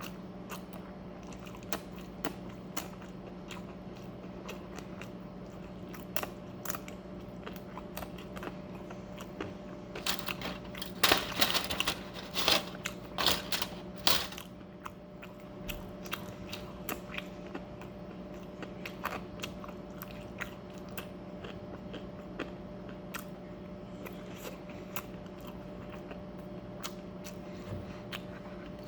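A person chewing and biting food close to the microphone, with scattered crunches and a louder run of crunching about ten to fourteen seconds in. A steady low hum sits underneath.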